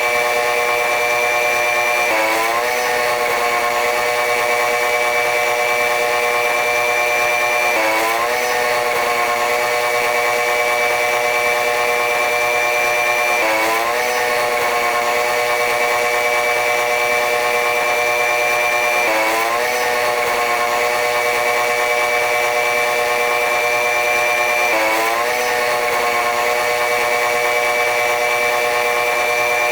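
Running noise of a diesel-electric locomotive-hauled passenger train: a steady mechanical hum with a high whine. The pitch dips briefly and recovers about every five and a half seconds.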